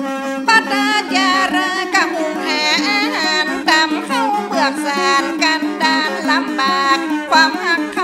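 Instrumental passage of northern Thai saw music: a melody of sliding, ornamented notes over a steady low drone.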